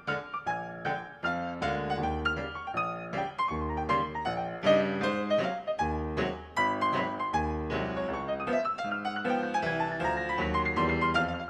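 Background piano music, quick notes over low chords that come back about every second and a half.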